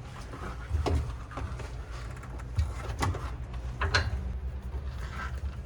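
About four separate light clicks and knocks from a bicycle pedal being fitted and hand-threaded into the crank arm.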